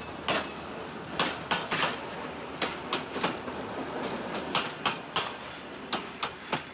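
Railway carriage wheels clacking over the rail joints as the rear of a passenger train passes and moves away: repeated sharp clacks, often in quick pairs or threes, over a steady rolling rumble that fades toward the end.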